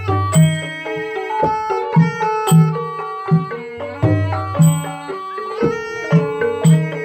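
Traditional Khmer music accompanying Apsara dance: a melody of struck, tuned percussion over a regular low drum beat.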